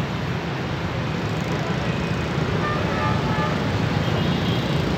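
Steady low rumble of city road traffic, with a few faint short high tones in the middle.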